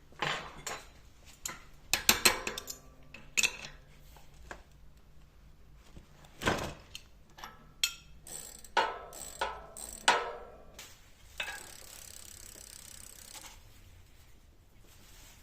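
Small metal parts clinking and knocking against each other and a hard surface: a dozen or so sharp clinks, some ringing briefly. Later a soft rushing noise lasts about two seconds.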